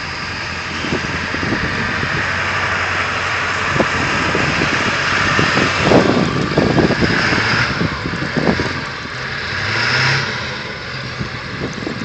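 Pickup truck's engine revving as it tries to climb a snow-covered hill, tyres spinning and throwing snow, with the engine pitch rising about ten seconds in.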